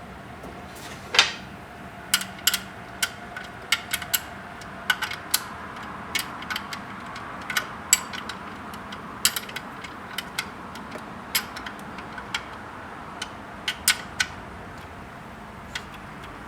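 Hand ratchet wrench clicking in short, irregular runs while the nut on an alternator wire terminal is run down, with a sharper metal clack about a second in.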